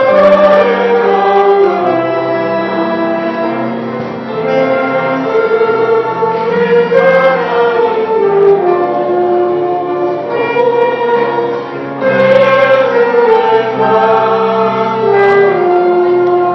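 Church choir singing a sacred song, many voices together in sustained phrases, a new phrase starting about four seconds in and again about twelve seconds in.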